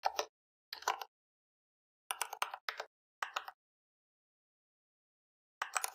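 Computer keyboard being typed on: short runs of quick keystroke clicks, about six bursts with silent gaps between them.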